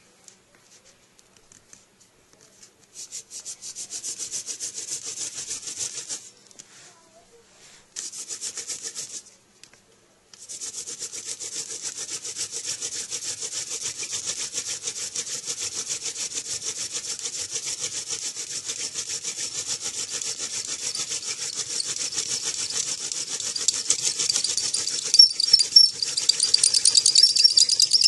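Hand-drill fire-making: a wooden spindle twirled between the palms grinds in a goldenrod gall hearth with a scratchy rubbing sound. It comes in two short runs, then runs unbroken from about ten seconds in, getting louder, with a high squeal from the spindle tip near the end.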